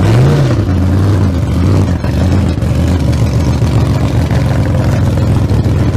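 A loud engine revving, with a brief rise and fall in pitch just at the start, then running steadily.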